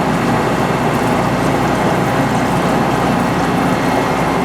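Metal lathe running steadily while machining a cast iron sawmill mandrel collar, giving a loud, even noise throughout.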